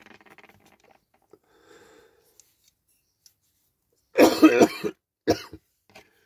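A man coughing, a fit that starts about four seconds in with one long loud cough followed by two shorter ones: a cough from a chest infection.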